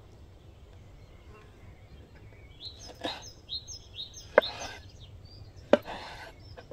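Large kitchen knife slicing through raw lamb kidney and striking a wooden cutting board: three sharp knocks of the blade on the board, the loudest two about a second and a half apart. A bird chirps a quick run of high notes in the middle.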